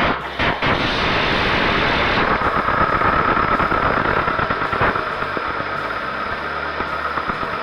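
A 2001 Toyota Corolla's 1ZZ-FE 1.8-litre four-cylinder engine starting right up on its first start after a cylinder head rebuild, then running fast and easing down a little after about five seconds.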